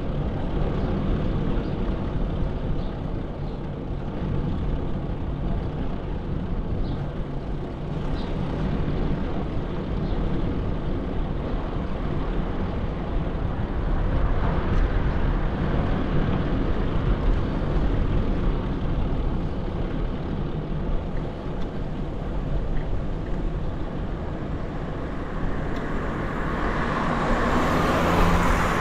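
City road traffic heard while riding a bicycle: a steady noisy rumble with a heavy low end. Near the end a vehicle passes close, growing louder and hissier before fading.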